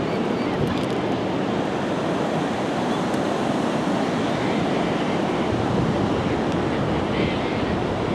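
Pacific Ocean surf washing steadily onto a sandy beach, with wind rumbling on the microphone that grows stronger about five seconds in.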